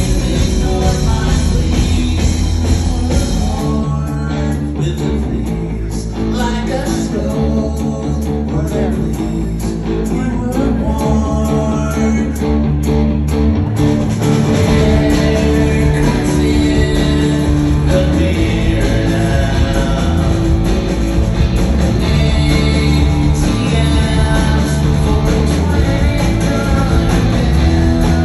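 Live rock band playing on stage with electric guitar, keyboard, drums and a lead vocal. The first half is sparser, with crisp regular drum hits. About halfway through the full band comes back in and the music grows louder.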